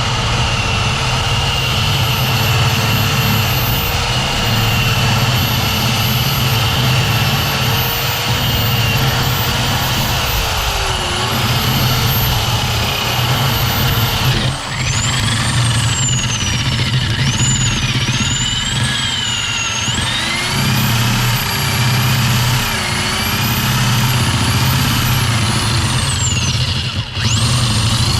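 Power drill with a titanium bit drilling out a BMW E46's ignition lock cylinder through its middle, the key being lost. The motor runs steadily with a high whine that rises and falls as the load on the bit changes, and it briefly drops out about halfway through and again near the end.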